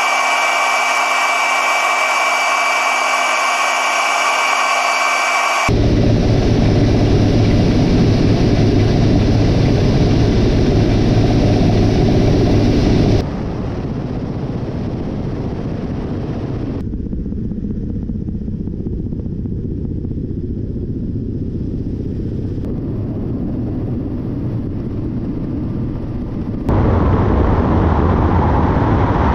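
Military helicopter turbine engines and rotors running in flight, in several clips joined by abrupt cuts: a steady high whine at first, then a deeper, noisier rush that drops in level for a while and comes back louder near the end.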